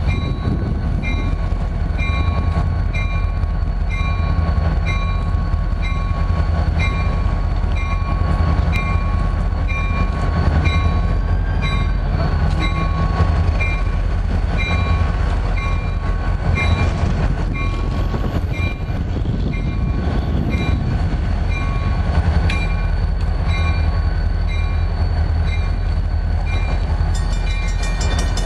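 NYSW diesel locomotives running slowly as the train pulls away, with a steady low engine rumble and the locomotive bell ringing throughout, about three strokes every two seconds.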